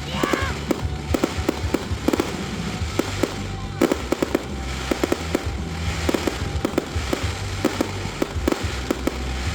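Fireworks popping and crackling in a rapid, irregular series of sharp reports, with music playing underneath.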